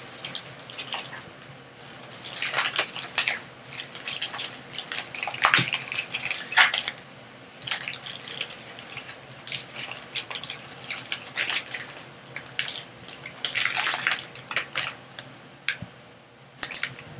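Trading-card pack wrapper crinkling and tearing as it is worked open by hand, then cards rubbing and sliding against each other as the stack is handled, in uneven bursts with short pauses.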